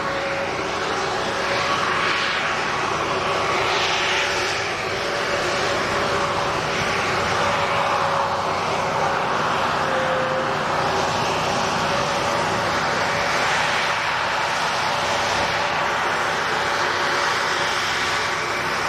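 Racing hovercraft's engine and thrust fan running at speed: a steady drone with a held pitch that wavers slightly, over a rushing noise that swells and fades every few seconds.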